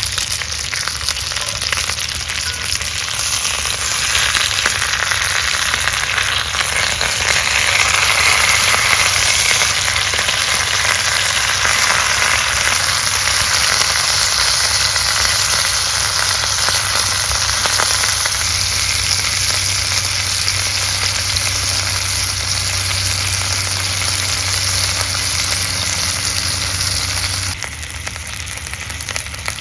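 Chicken searing in a hot cast iron skillet, a loud, steady sizzle. It drops and changes abruptly near the end.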